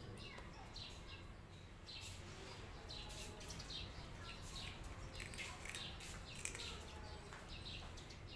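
A cat chewing dry, crunchy snack sticks, giving many short irregular crunches, with small birds chirping in the background.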